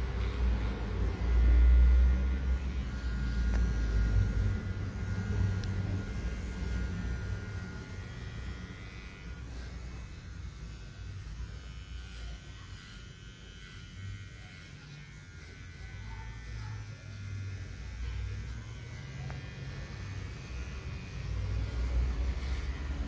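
Cordless electric hair trimmers buzzing as they cut beard and neck hair, a thin steady whine over a low hum that swells and fades as the blade moves against the hair.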